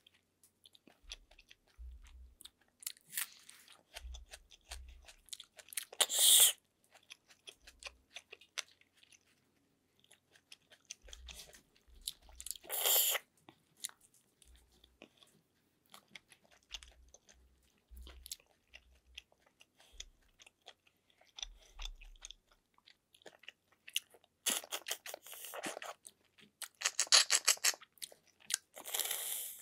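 Close-miked eating of freshwater snails in coconut sauce: wet chewing and small shell clicks, broken by several loud slurps as the meat is sucked out of the shells. One comes about six seconds in, another about thirteen seconds in, and a run of them near the end.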